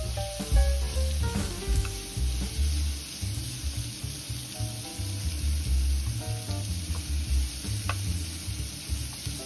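Thin slices of pork sizzling steadily in a hot non-stick frying pan while being stirred and turned with tongs.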